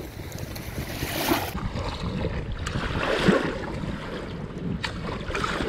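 Small river waves washing and lapping on a sandy shore, with wind buffeting the microphone. A brief, louder scuffle comes about three seconds in.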